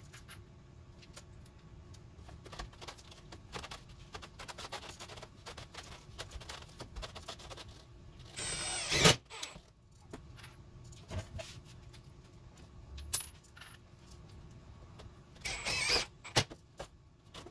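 Cordless drill driving 1¼-inch screws up into wooden ceiling boards, two short runs of the motor, about eight and a half seconds in and again about fifteen and a half seconds in. Small clicks and knocks of handling come between them.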